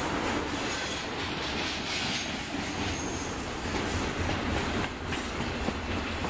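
Freight train rolling past on the main line: a steady noise of wheels running on rail.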